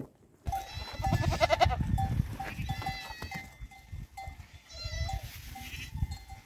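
Goats bleating a few times, with a small bell ringing in short repeated notes.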